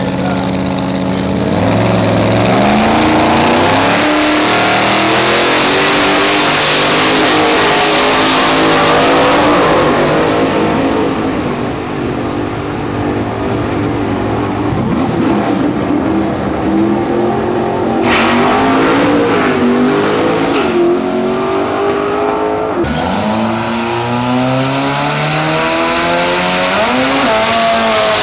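Drag-race cars' engines revving hard and accelerating down the strip, their pitch climbing and dropping back again and again through the gear changes, with a few abrupt jumps between runs. Near the end a rail dragster's engine revs during a burnout, with some tyre squeal.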